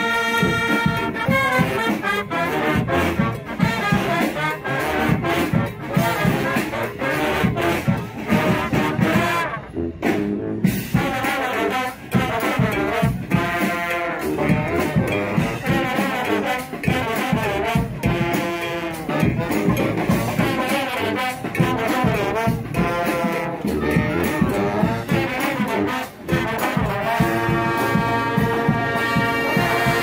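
Brass band playing live: horns over percussion, with a short break in the music about ten seconds in.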